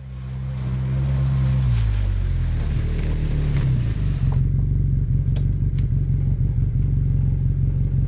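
Side-by-side UTV engine fading in and running, its pitch dropping as it slows, then settling into a steady lower run with clatter; a hiss cuts off about four seconds in.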